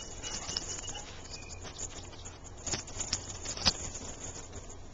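Light scuffing and scattered taps of feet on wood-chip mulch as two dogs play, with a sharp click about three and a half seconds in.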